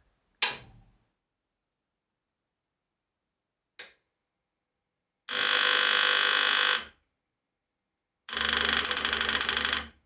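Gaggia Classic's vibration pump running dry, with no water in it, after a controller rebuild. It makes a loud, steady buzz in two runs of about a second and a half each; the second run pulses rapidly and has a deeper rumble. A click of the power switch comes just after the start, and a short click about four seconds in.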